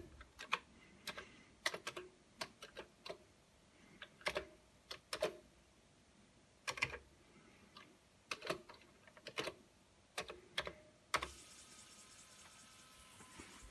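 Keys pressed one at a time on a computer keyboard, irregular clicks as a disk load command is typed. About eleven seconds in a last key press is followed by a steady faint whir with a thin tone, the Commodore 1541 floppy drive spinning up to read the disk.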